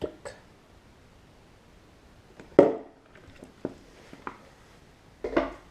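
A few separate light knocks and clicks, the loudest about two and a half seconds in, from a glass and a glue container being handled while some excess glue is taken back out of the glass.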